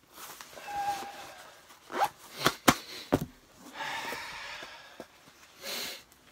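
Handling noise of clothing and gear: uneven rustling, a brief squeak near the start, and a few sharp clicks about two and a half to three seconds in.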